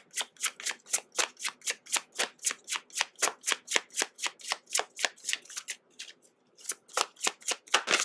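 A deck of tarot or oracle cards being shuffled by hand in quick rhythmic strokes, about four a second. There is a brief pause about six seconds in before the shuffling resumes.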